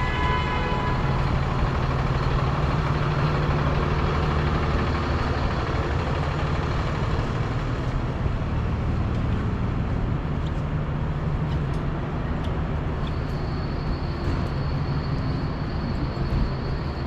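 Steady low drone of a large road vehicle's engine, such as a bus or truck, running close by in city traffic. A faint high whine joins about two-thirds of the way through.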